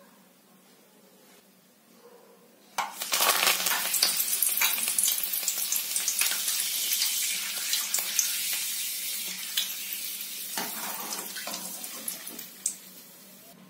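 Fresh curry leaves hitting hot frying oil in a kadai: a sudden loud spluttering sizzle with many crackles starts about three seconds in, then slowly dies down over the next several seconds, with a sharp click near the end.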